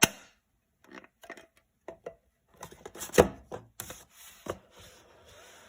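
Speedcube being turned by hand: quick plastic clicks and clacks of the layers turning, in irregular clusters, the loudest about three seconds in.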